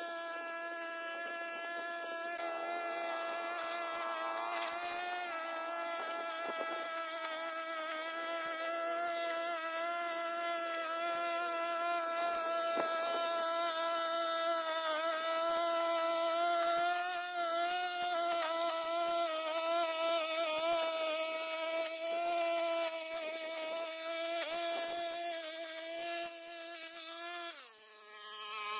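Brush cutter engine running at high speed with a steady high buzz that wavers slightly in pitch as it cuts. Near the end the throttle is let off and the pitch falls away.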